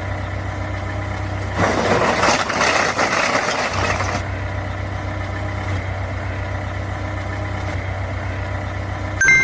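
Truck engine idling steadily, with a louder, rougher stretch from about one and a half to four seconds in. A short ding near the end.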